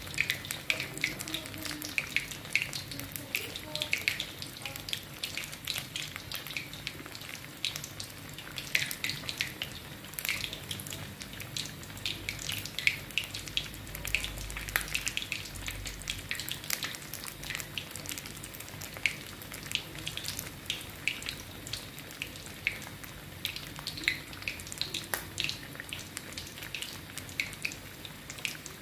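Whole pork leg deep-frying in hot oil in an aluminium wok: a steady sizzle with frequent, irregular sharp pops and crackles from the skin crisping.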